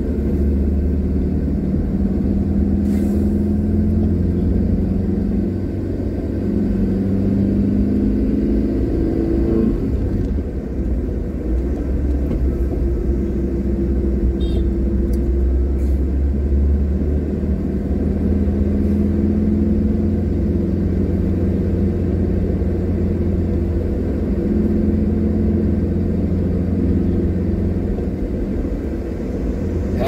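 Car engine and road rumble heard from inside the moving vehicle. The low rumble is steady, and the engine note climbs and drops several times as the car speeds up and slows.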